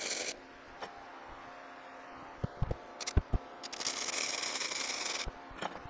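Flux-core wire-feed welding arc from a Forney Easy Weld 140 FC-i crackling in short runs. One run stops just after the start, a brief one comes about three seconds in, and a longer one of about a second and a half follows. A few sharp clicks fall between the runs.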